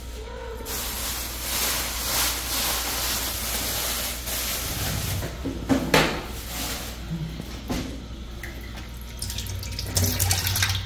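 Tap water running into a kitchen sink. It starts just under a second in and eases off about halfway through, with a sharp clatter about six seconds in and a few more knocks near the end.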